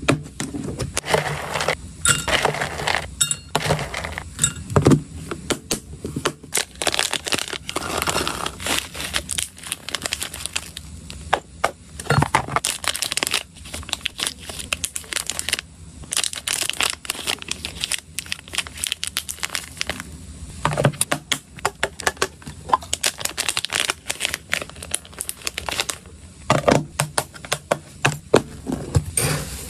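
Plastic packaging crinkling and rustling, with a dense run of small clicks and clinks as dry hamster treats (freeze-dried cubes and little hard balls) are handled in plastic boxes and dropped into a glass cup.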